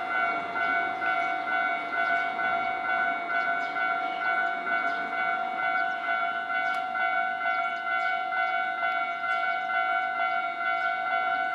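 Japanese railway level-crossing electronic warning bell ringing: a steady, evenly repeating two-tone chime, signalling that a train is approaching and the crossing is closing.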